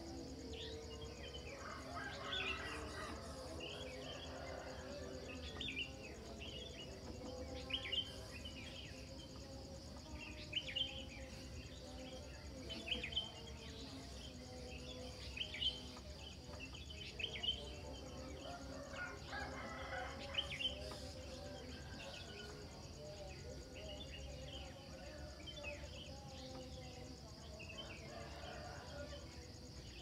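Morning chorus of wild songbirds chirping and calling with many short calls, over a steady high insect trill. A rooster crows a couple of seconds in and again about two-thirds of the way through.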